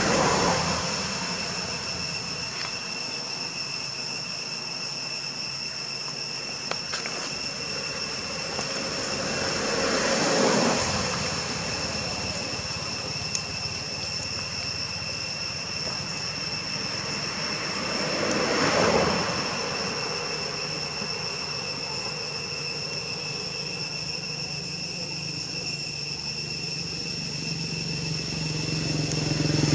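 Steady high drone of insects, with passing vehicles swelling up and fading away three times, about ten seconds apart, and another approaching at the end.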